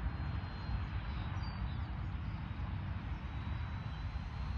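Electric RC trainer plane's 3536 1000 kV brushless motor and propeller droning steadily at part throttle, with a thin steady high whine, over a low steady rumble.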